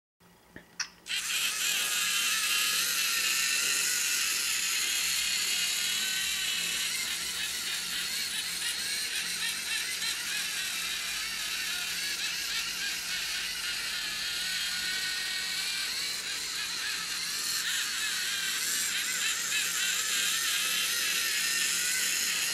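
LEGO Mindstorms NXT servo motors whirring as the robot follows a line, starting about a second in. The whir runs steadily, its pitch wavering as the program keeps adjusting each motor's power to steer back to the line.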